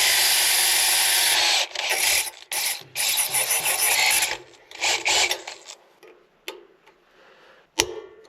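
Power drill run in several bursts with a dull bit, grinding and chattering as it works at a hole in a small part. It goes quiet after about five seconds, then two sharp clicks come near the end.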